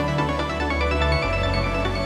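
Background music: an instrumental track of held notes over a sustained bass line, the bass note changing about a second in.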